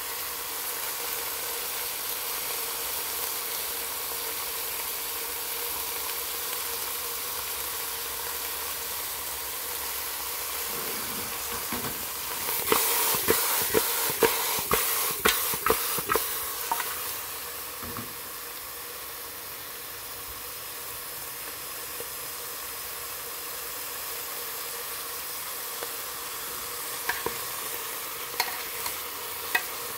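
Chicken pieces sizzling steadily as they are sautéed in an aluminium pressure-cooker pot. A metal spoon stirring them knocks and scrapes against the pot in a run of clanks about halfway through, and a few more near the end.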